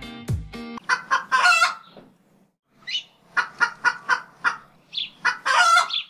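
Chickens clucking in short runs of calls, with a brief pause partway through and a louder, longer call near the end. A plucked-string music phrase ends within the first second.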